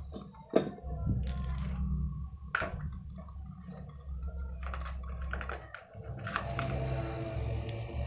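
Refrigerator hermetic compressor, wired straight to mains through its starter relay, starting up and running with a low steady hum. The hum dips briefly about six seconds in and then picks up again. Sharp clicks and knocks of the plug and wires being handled come near the start.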